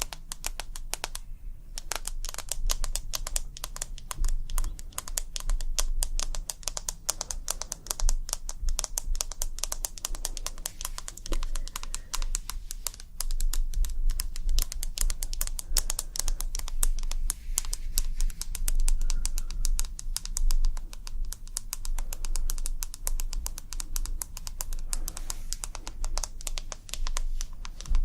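ASMR tapping: a dense, rapid run of light taps, many each second, with a low rumble underneath.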